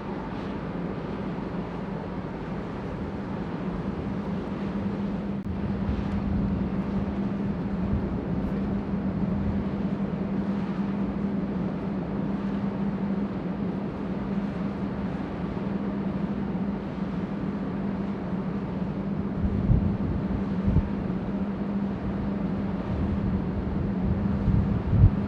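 A ship's steady low machinery hum under a rush of wind, with the wind buffeting the microphone in gusts near the end.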